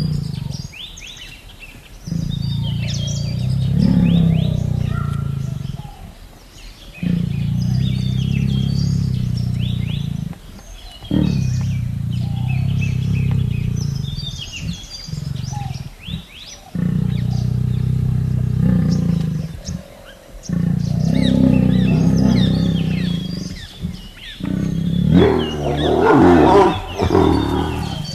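A Bengal tiger giving a series of long, low, drawn-out calls, each lasting a few seconds with short breaks between them; the last one near the end is louder and rougher. Birds chirp faintly throughout.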